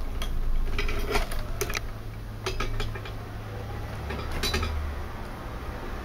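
Soaked willow rods clicking and scraping against each other and against the wooden jig block as they are bent over and woven in, in short scattered clusters of ticks, over a steady low rumble.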